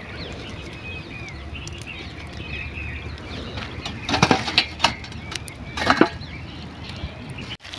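A wire frying strainer knocking against a large steel plate as fried snacks are tipped off it: a cluster of sharp clanks about four seconds in and another about six seconds in. Faint bird chirps in the background.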